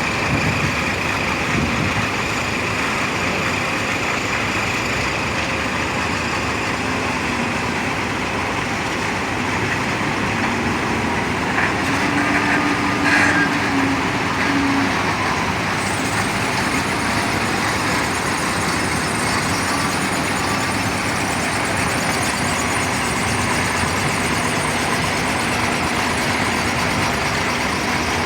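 Stone crusher milling ballast into quarry dust, a steady, even machine noise, with a brief knock and a short steady tone about halfway through.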